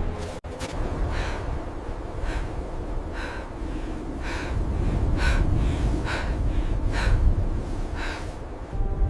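Heavy, laboured breathing, about one breath a second, over a low wind rumble.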